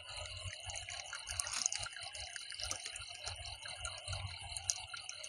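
Faint water sounds: small splashes and trickling with scattered light clicks, over a steady high-pitched hum.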